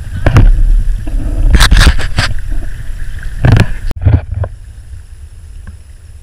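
Water splashing and sloshing around paddled canoes and kayaks, with several loud splashes in the first four seconds over a low rumble of wind on the microphone. About four seconds in the sound drops off abruptly to quieter wind noise.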